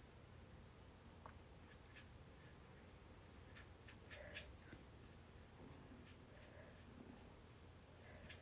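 Faint scratching of a paintbrush stroking acrylic paint onto canvas: a scatter of short, irregular strokes over a quiet room hum.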